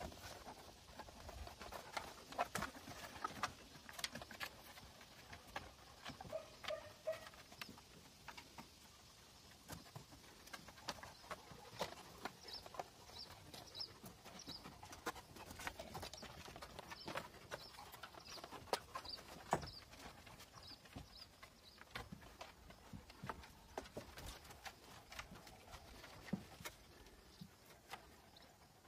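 Faint scattered taps and clicks of a Central Asian Shepherd puppy's paws and claws on wooden plank boards as it moves about and noses the floor. A bird chirps briefly in short high notes about halfway through.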